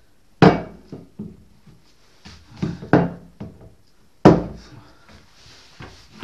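Aluminium Zündapp engine crankcase half being handled on a wooden workbench: a series of sharp knocks and clunks as it is moved and set down, the loudest about half a second in and about four seconds in.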